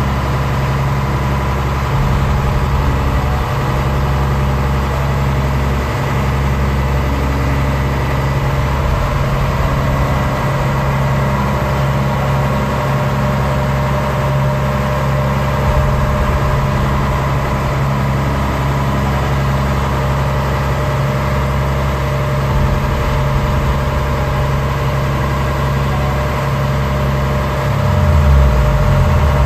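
Fishing boat's engine running steadily under way, heard from inside the wheelhouse, a deep even drone. Near the end it speeds up briefly and gets a little louder.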